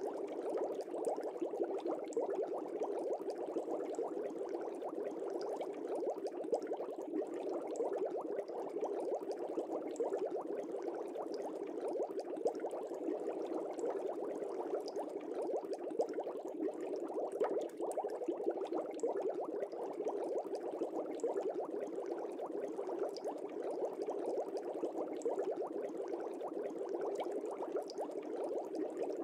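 Steady bubbling and trickling of aquarium water, as from a filter or air stone, with an even fine crackle that does not change.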